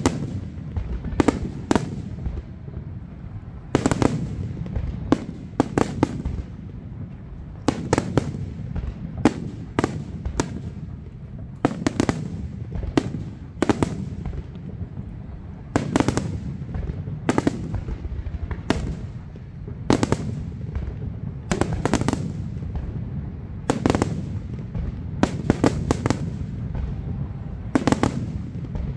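Aerial fireworks display: shells bursting in a steady string of sharp bangs, about one a second, over a continuous low rumble.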